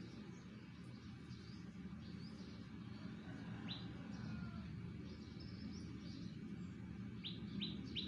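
Small birds chirping: short falling chirps, with a quick run of four near the end, over a steady low background rumble.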